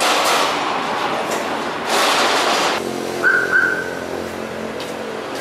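Steel folding gate being pushed open, rattling and scraping along its track in two loud stretches that stop abruptly, then a brief high squeal about three seconds in, over a steady hum of road traffic.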